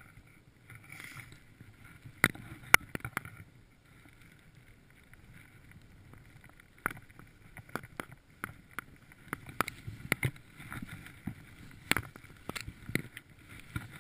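Skiing through deep powder snow: snow rushing under the skis and wind on the microphone, with sharp clacks of skis and poles scattered throughout, the loudest about two seconds in.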